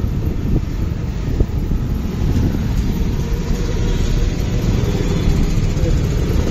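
Steady low rumble of wind on the microphone mixed with a motorcycle's running engine and tyre noise while riding.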